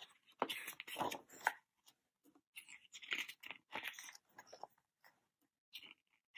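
Paper pages of a large photobook being turned and handled: faint rustling in two clusters, with a smaller rustle near the end.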